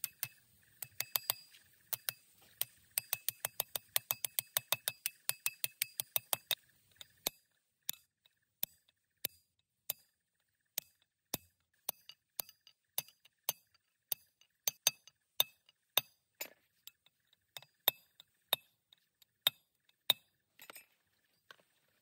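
Hammer blows on a steel drift, driving a tapered roller bearing cone down onto a differential carrier: rapid ringing metallic clinks, about four a second, for the first seven seconds, then slower single strikes about two a second.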